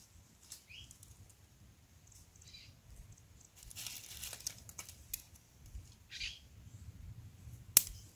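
Hands working a bamboo-and-stick snare trap on dry leaf litter: rustling of dry leaves and small clicks of sticks and cord, with a sharp snap near the end that is the loudest sound.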